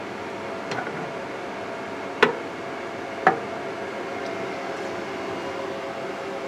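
Two sharp knocks about a second apart, with a fainter tap before them, as objects are handled. A steady hum runs underneath.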